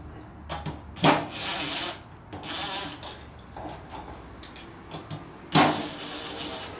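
Cordless impact driver on its first setting, run in three short bursts of under a second each, about a second in, just before the middle and near the end, with small clicks between. It is backing out the spring-loaded Allen bolts on a 50mm wastegate's dome a little at a time.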